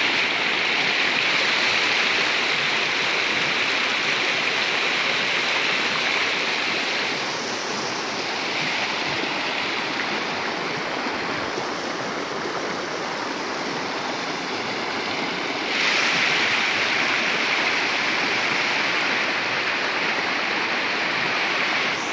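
Shallow mountain stream rushing over rocks and boulders: a steady, full rush of water. It dips a little quieter about a third of the way in and swells back up about two-thirds in.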